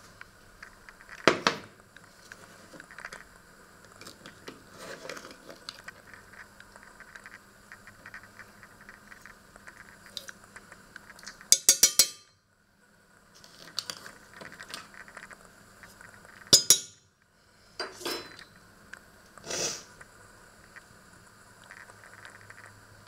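Metal spoon and stainless-steel pot clinking and knocking: a sharp knock about a second in, a quick run of clinks around halfway, then a few more knocks and clinks. A faint steady hum lies underneath.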